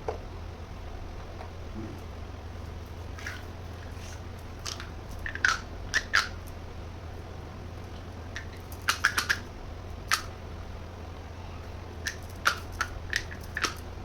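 Small plastic toy kitchen pieces clicking and tapping as they are handled, in scattered clusters of short, sharp clicks over a steady low hum.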